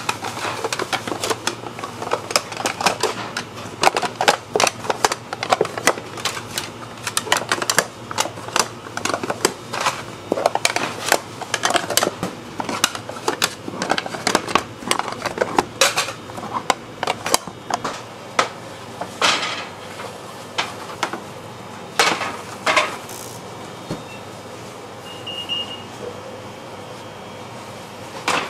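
Square metal lids being set down and clacked onto rows of metal Pullman loaf tins: a rapid, dense run of clinks and clatters for about the first two-thirds, then only a few scattered metallic knocks.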